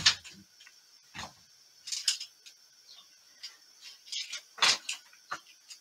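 Someone rummaging through a plastic storage bin of yarn and craft supplies across the room: scattered rustles, light knocks and clatters with a few soft thuds and quiet gaps between them.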